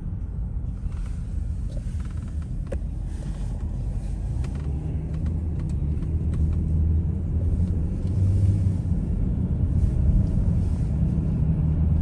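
Inside a moving car: steady low rumble of the engine and tyres on the road, growing louder after about five seconds as the car drives on.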